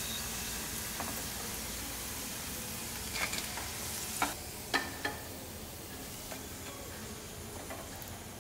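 Hot oil sizzling steadily in a kadai as deep-fried ivy gourd strips are lifted out with a metal slotted spoon; the sizzle slowly dies down. Several sharp metal clicks and taps of the spoon against the pan and plate, the loudest about four to five seconds in.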